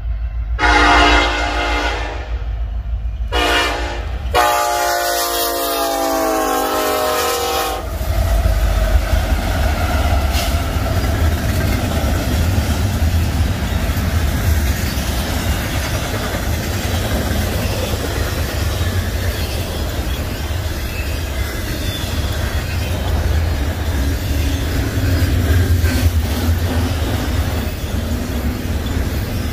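Union Pacific 1943's air horn sounding several blasts, the last a long one that ends about eight seconds in: the grade-crossing warning as the lead locomotives arrive. Then a steady low rumble and clatter of double-stack intermodal cars rolling past on the rails.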